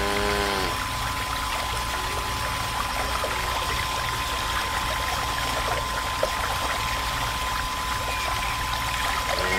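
A miniature DC water pump runs steadily with a hum and a thin whine while its outflow pours from a small tube into a little plastic bucket. A short pitched call sounds right at the start and again at the very end.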